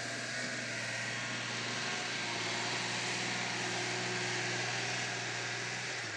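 Caterpillar 140G motor grader's diesel engine running steadily under load while its blade drags and spreads crushed-stone sub-base, with a continuous rushing scrape of gravel over the engine's low drone.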